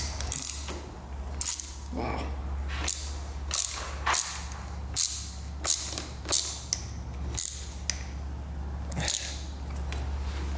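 Sharp metallic clicks from a hand tool working on a seized, rusted bolt of a dirt bike's handlebar brake master cylinder, coming at irregular intervals roughly once a second. A steady low hum runs underneath.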